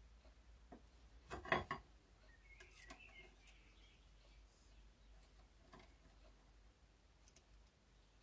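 A quiet workbench, with a short cluster of clicks and knocks about one and a half seconds in as a digital caliper and an aluminium weaver rail are handled and set against each other, and a few fainter clicks later. Faint bird chirps come about three seconds in.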